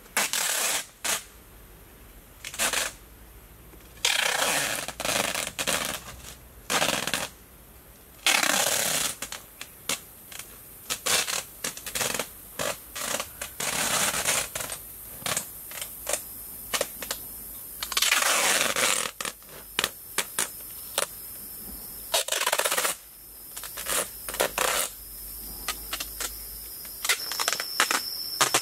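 Clear plastic cling film pulled off a hand roll and stretched around bamboo poles, in repeated noisy rasping bursts of about a second each, with sharp crackles and clicks between them.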